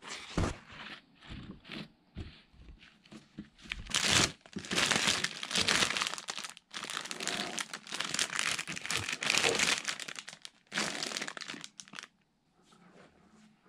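Plastic packaging crinkling and rustling as it is handled, loudest from about four seconds in and stopping shortly before the end.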